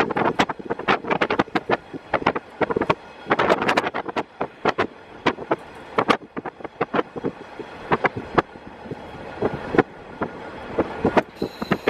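KiHa 48 diesel railcar running along the line, heard through an open window. Many rapid, irregular sharp knocks and clatter, with wind buffeting on the microphone.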